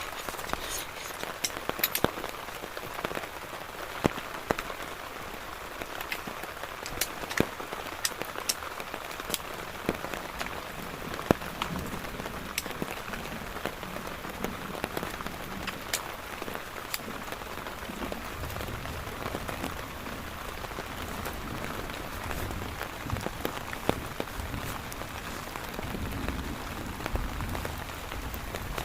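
Steady rain falling, with many scattered sharp drop hits ticking through it. A low rumble swells and fades in the second half.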